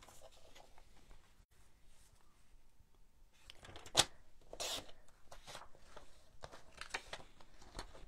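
Paper trimmer cutting patterned cardstock: a sharp click about four seconds in, then a short rasping scrape as the blade runs through the paper, with light paper rustling and handling around it.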